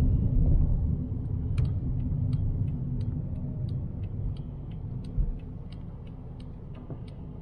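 Inside a Fiat Bravo 1.6 on the move, a low engine and road rumble fades as the car slows, while the turn-signal relay ticks about three times a second. A single thump comes about five seconds in.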